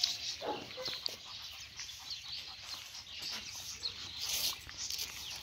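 Faint, scattered bird chirps over outdoor background noise.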